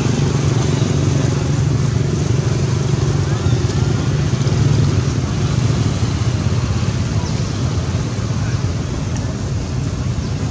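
A steady low rumbling noise with a hiss above it, even in level throughout.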